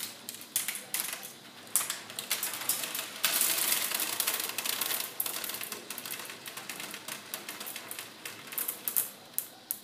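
Marbles clicking and clattering down the wooden tracks of a marble clock as its gates trip and release them, the clock turning over to the hour. Scattered clicks, with a dense run of clattering about three seconds in that lasts a couple of seconds.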